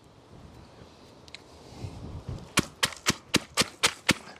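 Water filter vessel full of deionising resin being bounced and knocked down to tamp the resin: seven sharp knocks in quick succession, about four a second, starting a little past halfway. The knocks settle and pack the resin beads.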